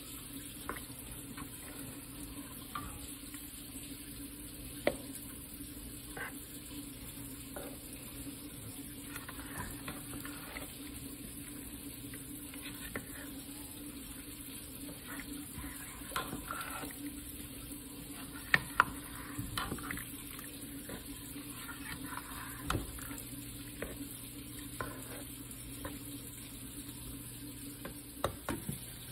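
A plastic spoon stirring chunky taco soup (ground beef, beans, corn, tomatoes) in a metal stockpot: wet sloshing and squelching, with scattered knocks of the spoon against the pot, the sharpest a pair of clicks about two-thirds of the way through. A steady low hum sits underneath.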